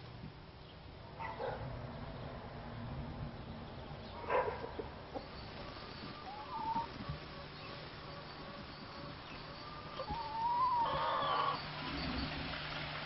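Domestic chickens calling, with a few short clucks spread through the clip and a longer, louder call about ten seconds in.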